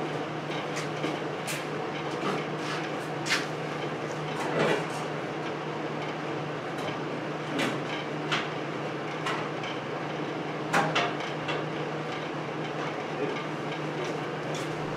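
Scattered light knocks and clicks from a car body and chassis being handled under an engine hoist, over a steady low hum. The louder knocks come about a second and a half, three, four and a half and eleven seconds in.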